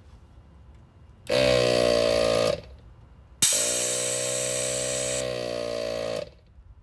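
ARB 12-volt on-board air compressor running in two spells: about a second, a short pause, then about three seconds more, the second spell starting with a click. It is charging the air line to the sway-bar disconnect solenoid.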